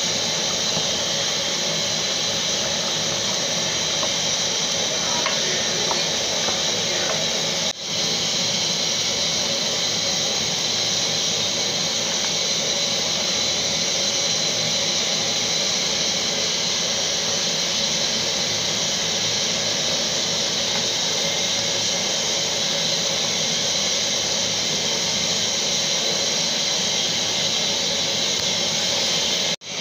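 Steady hiss from the stove and the simmering pot of jollof rice, even throughout, broken by two brief gaps.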